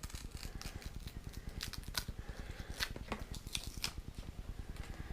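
Scissors snipping through a rubber helmet mohawk strip, trimming it to length: a run of sharp, irregular snips and clicks over a low steady rumble.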